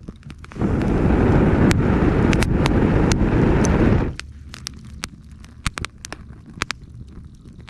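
Campfire crackling with sharp snaps and pops. Early on, a loud low rushing noise swells up suddenly, lasts about three and a half seconds and cuts off.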